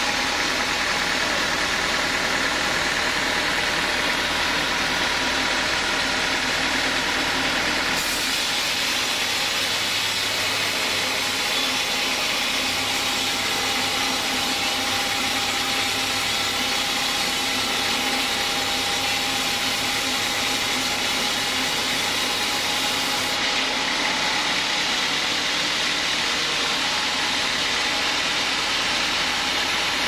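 Band sawmill running, its blade cutting through a teak log: a loud, continuous machine noise with no let-up. The low hum beneath it shifts about a quarter of the way in and again near three quarters.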